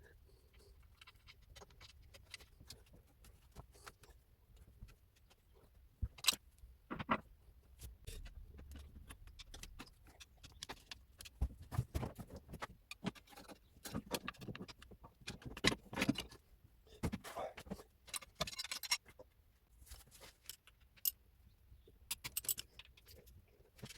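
Irregular metallic clinks, taps and knocks of hand tools and loose engine parts being handled, coming thicker from about the middle onward.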